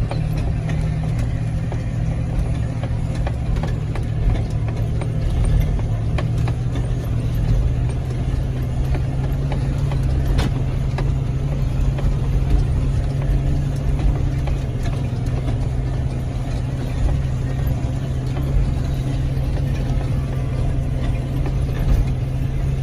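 John Deere 6145M tractor's six-cylinder diesel engine running steadily while pulling a pasture harrow, a constant low engine hum whose note settles slightly lower about eight seconds in.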